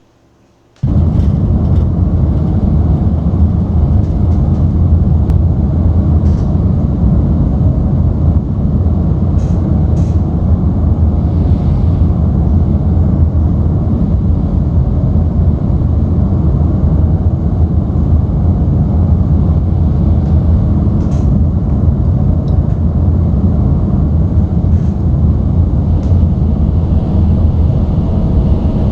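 Steady loud low roar of a Boeing 737 MAX 7 on its landing approach, engine and airflow noise, cutting in about a second in, with a few faint ticks.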